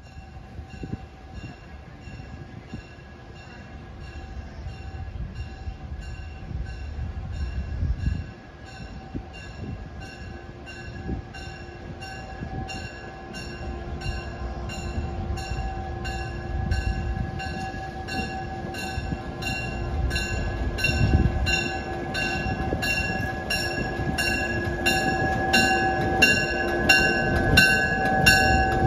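Diesel locomotive approaching with its bell ringing steadily, a little under two strikes a second, over the low rumble of the engine; bell and engine grow louder as it draws near.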